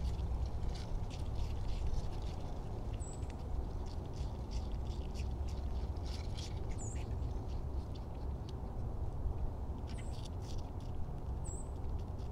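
Cottontail rabbit chewing apple: a quick, uneven run of small crisp crunches. A few short high bird chirps come through, over a low steady rumble.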